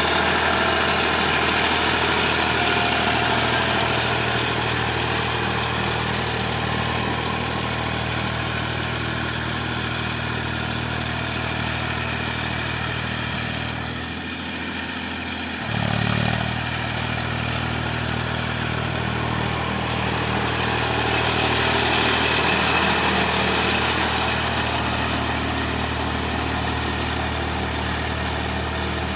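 Eicher tractor's diesel engine running steadily at low revs. The sound dips briefly about fourteen seconds in and comes back abruptly a second and a half later.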